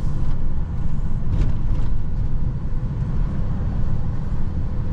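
Motor vehicle driving: a steady low rumble of engine and road noise.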